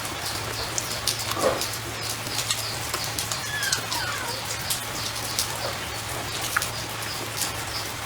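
Birds chirping in the background over a steady low hum, with many small sharp clicks and taps scattered throughout.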